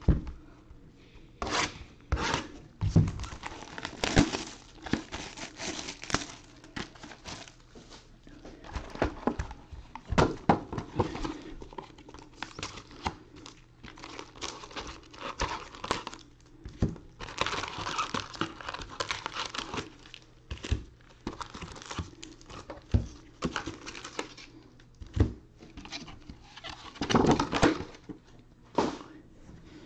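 Trading card hobby box being opened and its foil card packs handled: irregular crinkling and tearing, with a few sharp knocks, busiest in a few stretches.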